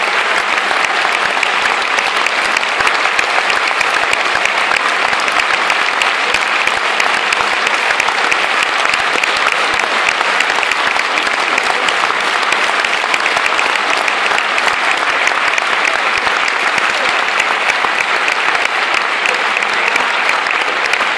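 A large audience applauding: dense, steady clapping that holds at an even level throughout.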